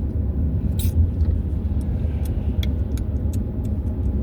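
Steady low road rumble inside a moving car's cabin, with scattered light clicks and rattles of small items being handled.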